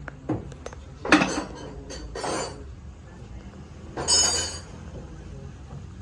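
Metal clanks and clinks: a few light knocks, a sharp loud strike about a second in, then a longer ringing clang about four seconds in, as heavy steel parts and tools are handled.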